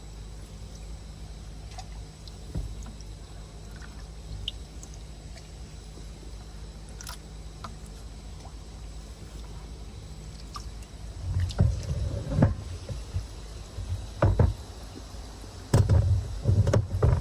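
Water sloshing and splashing in a tub as koi fry are netted and sorted, in loud irregular clusters in the second half, over a steady low hum.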